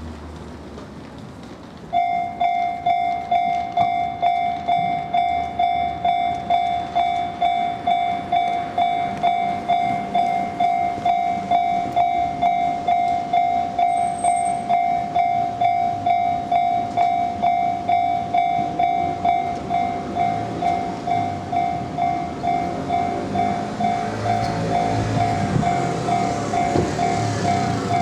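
A Japanese level-crossing warning bell starts about two seconds in and rings on steadily at roughly two strikes a second. In the last few seconds a train approaches and passes, its wheels rumbling on the rails under the bell.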